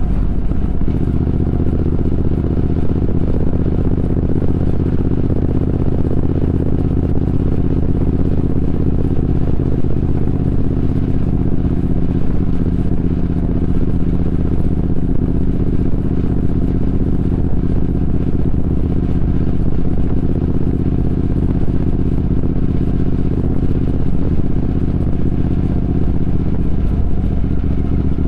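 Triumph Speed Twin 1200's parallel-twin engine running at steady revs while riding, with only small shifts in pitch near the start and near the end.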